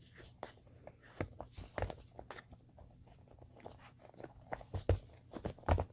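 Small rubber RC crawler tire being worked by hand around its weighted insert: irregular soft rubbing and scattered light knocks, with two louder knocks near the end.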